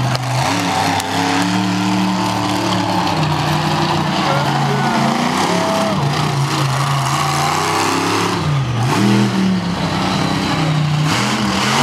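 Avenger monster truck's engine revving hard and changing pitch, rising and falling as the throttle is worked, with a deep drop and a climb back about nine seconds in.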